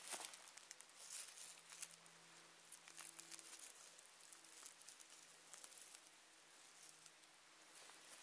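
Faint crackling and rustling of dry leaf litter as a knife and fingers dig a porcino mushroom out at its base, busiest in the first two seconds. A faint steady hum runs underneath.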